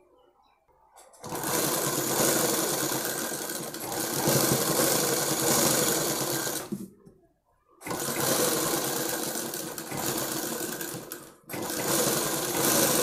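Black straight-stitch sewing machine running in three spells of stitching, with short pauses between them as the seam is guided through.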